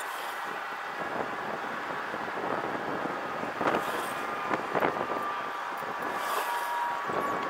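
Engine oil running steadily out of a drain-valve hose into a plastic drain pan, with a couple of faint knocks about halfway through.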